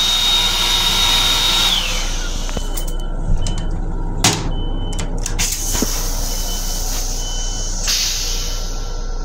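Flush cycle of an M7 railcar toilet: a motor's high whine holds steady, then winds down about two seconds in. A couple of sharp knocks follow, and near the end a hiss of rinse water runs into the stainless-steel bowl, over a steady low hum.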